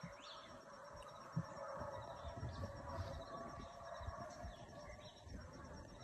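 Faint distant deer hounds baying as they run, with a few low rumbles from wind or the phone being handled.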